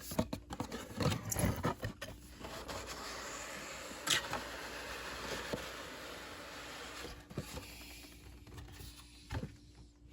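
Cardboard toy packaging being handled: scrapes and clicks, then a few seconds of steady rubbing as cardboard slides against cardboard, with a sharp tap about four seconds in.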